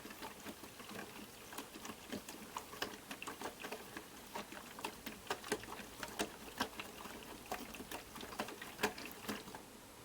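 DDR Piko WS5522 washing machine in its main wash: water and laundry sloshing in the drum, with irregular splashes and clicks several times a second.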